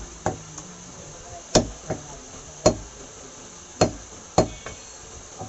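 Butcher's cleaver chopping through raw meat into a wooden chopping block: six sharp chops at uneven intervals, four of them loud.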